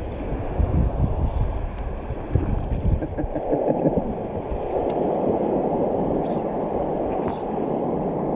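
Surf water washing and gurgling with wind buffeting the microphone: gusty rumble for the first few seconds, then a steadier rush of water.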